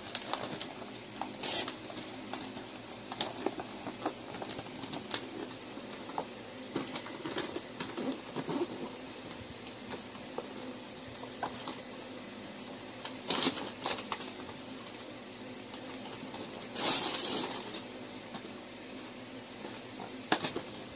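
Wrapping paper rustling and tearing and a cardboard toy box being handled, in scattered short bursts over a steady low hiss, with two louder bursts of rustling in the second half.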